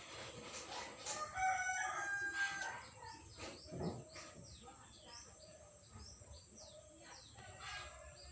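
A rooster crows once, a stepped call lasting about two seconds, followed by a run of quick, short falling chirps from small birds.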